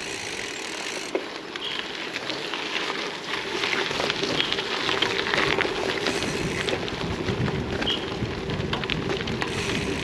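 Gravel bike tyres rolling over a loose gravel track: a continuous crackling crunch peppered with small pops of stones, over a steady hum, growing a little louder about four seconds in.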